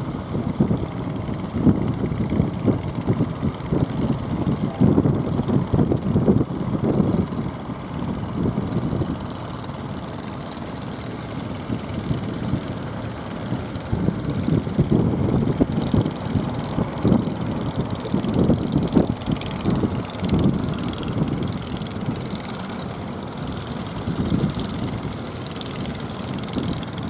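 Outrigger fishing boat's engine running out on rough water, mixed with a low wind rumble on the microphone that rises and falls every second or two.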